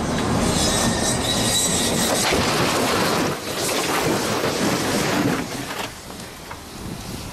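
Heavy truck driven at speed into a high-security crash barrier: loud engine and rolling noise, then the crash of the impact about two to three seconds in, followed by clattering and scraping of metal and debris that dies down near the end.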